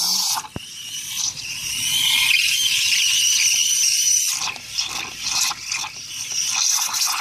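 Krups espresso machine's steam wand hissing with a high squeal, broken by a sharp click under a second in. From about four and a half seconds the steam turns to an uneven sputter.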